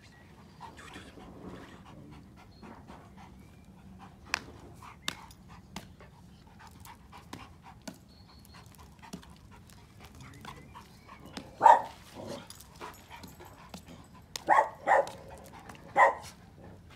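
A dog panting softly, with scattered light clicks. About twelve seconds in, and three times more near the end, come short, loud dog barks.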